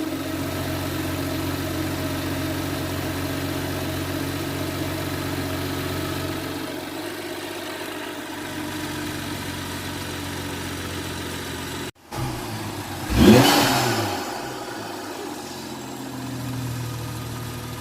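BMW M235i's turbocharged N55 inline-six, fitted with a Burger Motorsports aftermarket air intake, idling; the idle settles slightly lower about midway. After a brief break in the sound, the engine is revved once, rising and falling quickly, the loudest moment, then drops back to idle.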